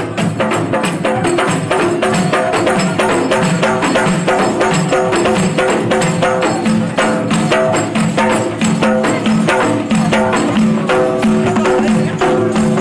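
Moroccan frame drums beaten in a fast, even rhythm by a marching troupe, with a group of men singing along.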